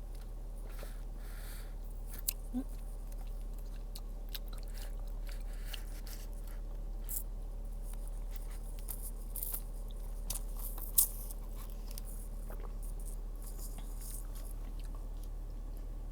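Close-up eating sounds: chewing and crunching of fried food, with scattered short crunches and mouth clicks and one sharper crunch about two-thirds of the way through.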